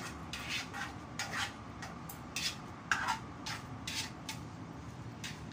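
A utensil stirring and tossing a cut vegetable salad in a plastic bowl: irregular scraping and clattering strokes, with a sharper knock about three seconds in.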